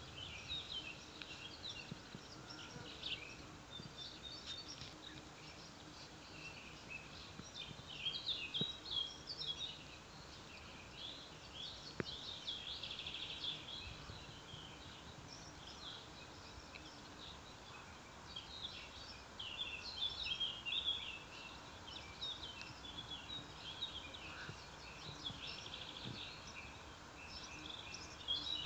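Small songbirds singing and chirping continuously, many quick trills and twitters over a faint background hiss.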